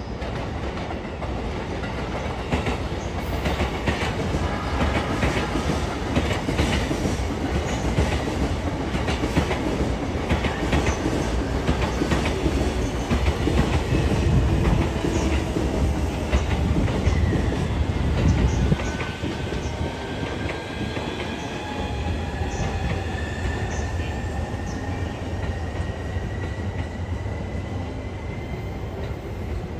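Passenger train running past, its wheels clattering over the rail joints with a heavy rumble. Partway through the rumble drops off, and a quieter running sound continues with a faint high tone slowly rising in pitch.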